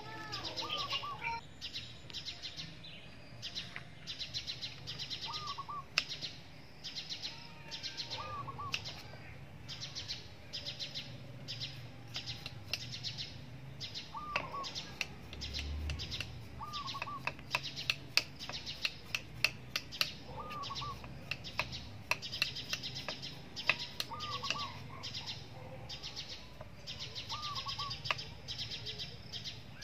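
Birds chirping and trilling rapidly and high, with one bird repeating a short rising-and-falling double note every two to three seconds. Scattered sharp clicks of a knife on a wooden cutting board as ginger is peeled and cut.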